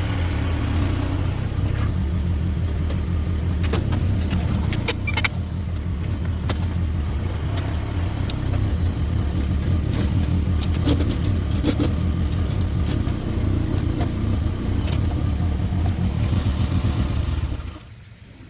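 Mini excavator engine running steadily under load, with scattered knocks and clatter as rocks are dug out. The engine sound cuts off near the end.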